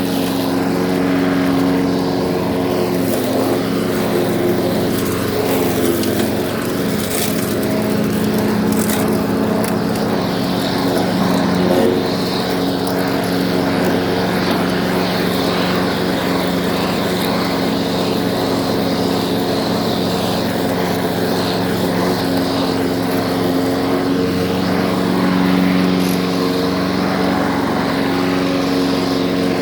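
Lawn mower's small engine running steadily, its pitch wavering slightly now and then.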